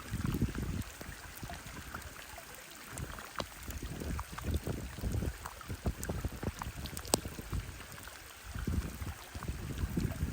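Water lapping and sloshing in irregular surges, with a few sharp ticks.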